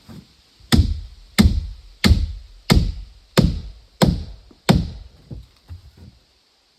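Heavy, evenly spaced blows of a tool on wood, seven strikes at about one and a half a second, followed by a few lighter knocks.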